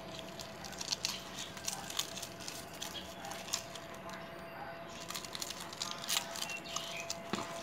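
Soft crackling and rustling clicks of lemongrass stalks being pushed into the mouth of a whole raw fish by hand, with some wet squishing, over a faint steady tone.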